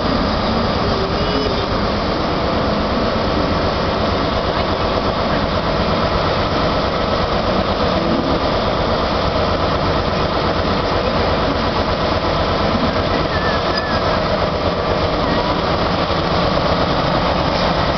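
First Great Western High Speed Train (InterCity 125) pulling slowly into the platform: a steady diesel engine drone together with the running noise of the Mark 3 coaches rolling past.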